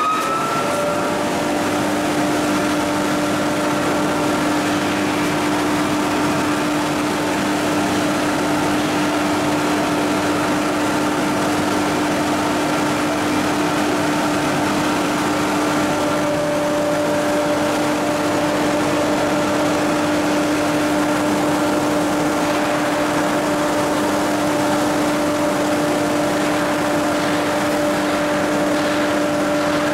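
Electric-motor machinery of a sludge pellet production line running steadily, including an inclined belt conveyor's motor and gearbox: a constant hum and whine over a mechanical noise. A whine rises and settles in the first second, and about halfway through one higher tone stops as another comes in.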